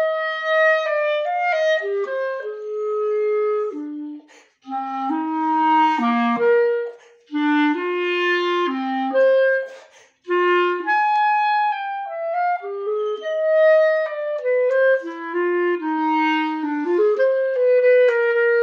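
Solo clarinet playing a slow, chamber-style melody of held notes moving step by step, with short pauses for breath about four seconds in and again about ten seconds in.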